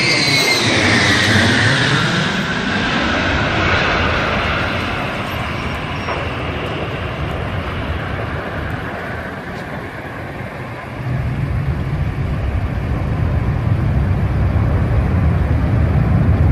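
Ilyushin Il-76's four turbofan engines passing low overhead: a high engine whine falls sharply in pitch as the jet goes by, then a broad jet roar slowly fades. About eleven seconds in, a louder, deeper rumble of jet noise takes over.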